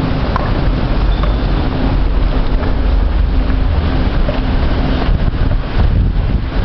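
Loud, steady low rumble of metro station and escalator machinery, heard from a descending escalator, with a faint hum that comes and goes.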